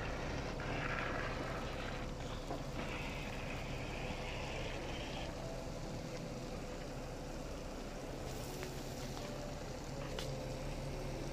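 An engine running steadily at idle, a low even hum under a steady background noise.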